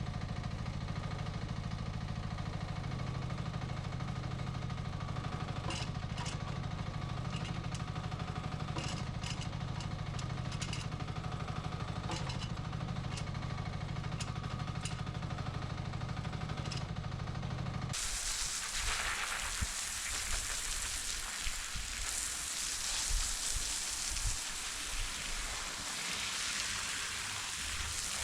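Nuoman E10 mini excavator engine running steadily, with scattered sharp clicks and knocks. About two-thirds of the way through it cuts off abruptly, giving way to a steady broad hiss with irregular low thumps.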